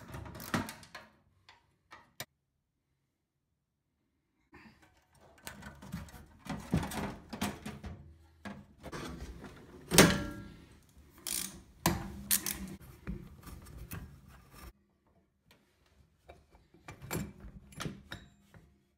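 Ratchet handle clicking as a screw is undone from the boiler's metal panel, then knocks and clatter of metal boiler parts being lifted out by hand, with one loud knock about ten seconds in.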